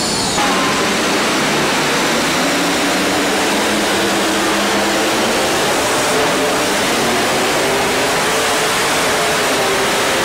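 Modified multi-engine pulling tractor running at full throttle under load while it drags the weight sled. Loud and steady, heard as a dense wall of engine noise rather than distinct firing beats.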